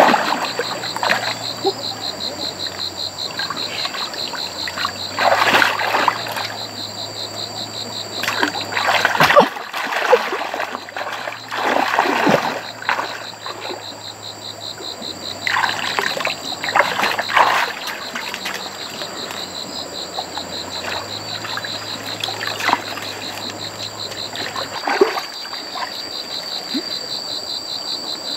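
Water splashing and sloshing in several separate bouts, over a steady high, rapidly pulsing chorus of calling animals and a faint low hum.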